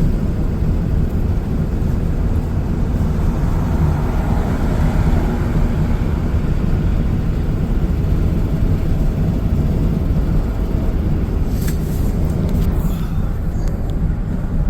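Steady rumble of road and engine noise from a moving pickup truck, heavy in the low end, with a couple of faint clicks near the end.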